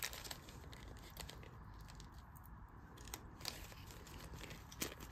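Small plastic bags of diamond-painting drills being handled: faint crinkling of the plastic with scattered light clicks.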